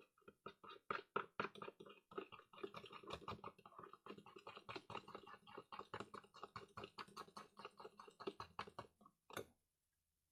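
A spoon stirring a sticky slime mixture in a bowl: fast, faint clicking and scraping strokes, several a second, that stop about nine seconds in, followed by one last tap.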